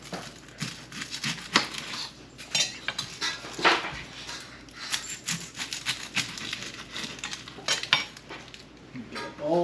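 Kitchen knife trimming and peeling an onion on a glass cooktop: irregular sharp knife clicks and taps on the glass, with the odd scrape.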